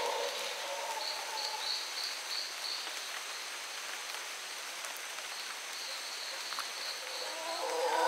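Rainforest ambience: a steady insect hum with two runs of high repeated notes, about three a second. Near the end, mantled howler monkeys begin roaring and grow loud.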